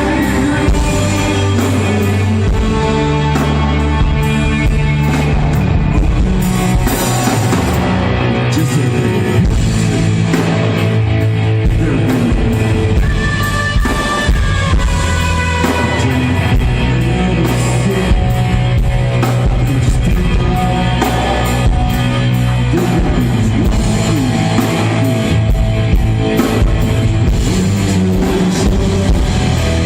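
Rock band playing live: guitar and drum kit.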